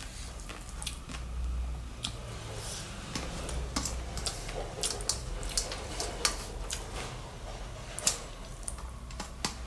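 Close-up eating sounds: wet chewing and squishing with irregular sharp mouth clicks.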